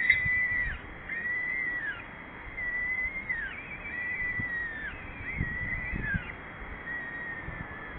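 Peregrine falcons calling at the nest during a feed: six drawn-out calls, each under a second, that rise slightly and fall at the end, repeated about every 1.3 seconds. A few soft low thuds come in the second half.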